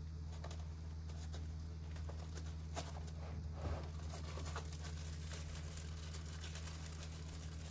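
Faint handling noise as packaged accessories are taken out of a foam-lined plastic hard case: soft plastic-bag rustles and a few light knocks, clustered around three to four seconds in, over a steady low hum.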